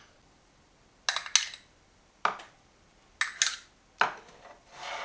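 A spoon clinking and tapping against a cup: about six short, light clinks spread unevenly over a few seconds.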